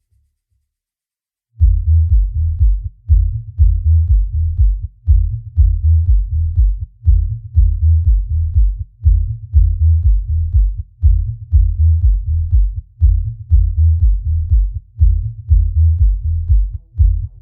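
Bass-heavy electronic music: a deep, pulsing bass line beating about twice a second, with almost nothing above the low bass. It starts after about a second and a half of silence.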